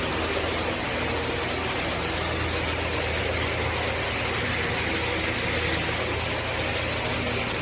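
A machine running steadily: an even whirring noise over a low, constant hum, with no change in speed.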